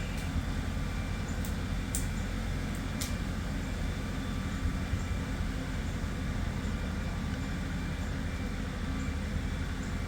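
LS farm tractor's diesel engine running steadily under load while it hauls a log up the hillside through a snatch-block pulley. A few sharp clicks come in the first three seconds.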